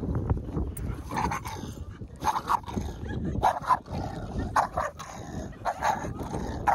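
Boston terrier barking repeatedly through a wire fence, short sharp barks, often in quick pairs, coming roughly once a second from about a second in.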